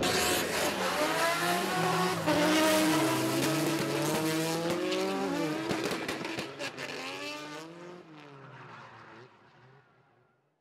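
Drift car's engine heard from inside the cockpit, revving up and down in steps under throttle while the tyres squeal. The sound fades out over the last couple of seconds.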